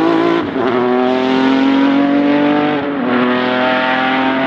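Racing car engine accelerating hard, its pitch climbing, with an upshift about half a second in and another near three seconds: each drops the pitch briefly before it rises again.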